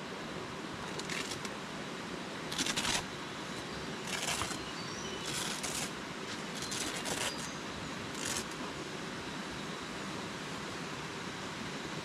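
Nylon dome tent rustling and rasping in about six short bursts as its door is unzipped and opened from inside, over a steady wash of river water.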